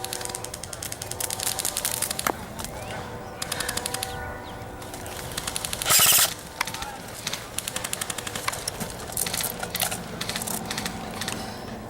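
Airsoft electric rifles firing full-auto bursts: repeated runs of rapid mechanical clicks from several guns, with one close, much louder burst about six seconds in.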